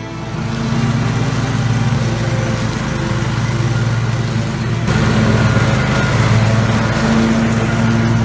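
Cub Cadet Z1 zero-turn ride-on mower running steadily while it cuts the lawn; about five seconds in the sound gets louder with more low rumble.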